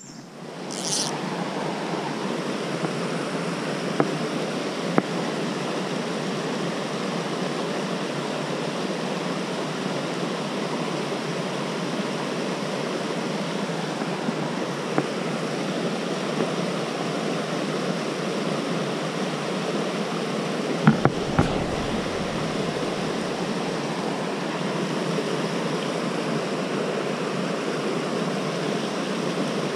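A rocky mountain trout stream rushing over boulders in a steady, even rush that sets in about a second in. A few light clicks and a soft low bump about twenty seconds in.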